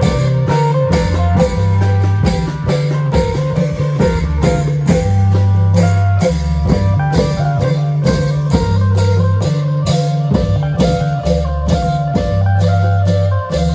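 Isan klong yao band playing a dance rhythm: long drums and percussion beating steadily a few times a second, under an amplified plucked-string melody and a held bass line.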